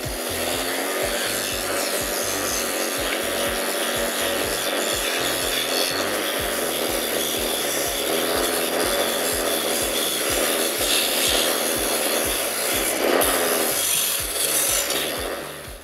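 Small abrasive wheel on a bench-mounted electric motor sanding a carved wooden rosette held against it by hand: a steady rasping hiss of wood being abraded, which stops shortly before the end.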